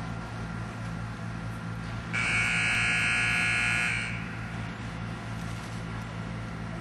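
Show-jumping arena buzzer sounding one steady tone for about two seconds, starting about two seconds in: the start signal for the horse and rider's round. A low steady hum runs underneath.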